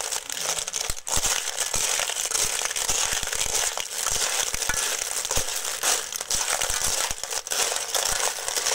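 Cockles in their shells being stir-fried in a metal wok: a steady sizzle with the shells clattering against each other and the pan, and a metal spoon scraping and knocking as they are tossed.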